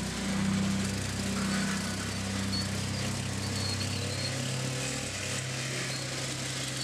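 Riding lawn mower engine running steadily, with a slight shift in pitch about a second in.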